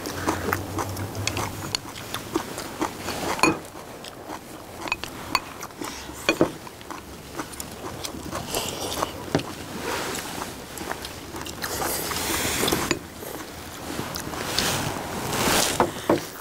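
People eating: chopsticks and spoons clicking against ceramic bowls many times, with chewing and slurping of stew from spoons and bowls.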